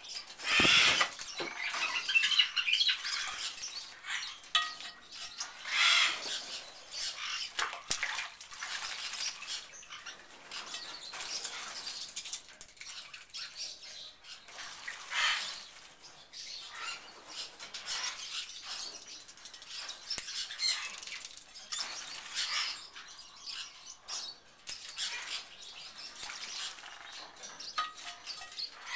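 Channel-billed toucan bathing in a shallow water bowl, beating its wet wings in the water in irregular bursts of splashing and flapping. The biggest bursts come in the first few seconds.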